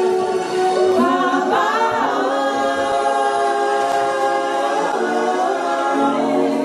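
Group of gospel worship singers singing a cappella in harmony into microphones, holding long sustained notes, with a rising and falling phrase about a second in.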